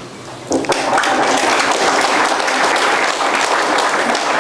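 Audience applauding, the clapping starting about half a second in and holding steady.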